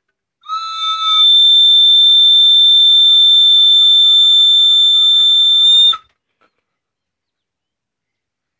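A loud, steady, shrill whistle held at one pitch for about five seconds, then cut off abruptly.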